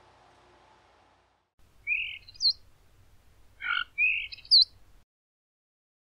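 Young Eurasian tree sparrow chirping in two short bursts about two seconds apart. Each burst is a quick falling chirp followed by a higher, sharp note, and a brief rasp comes just before the second burst.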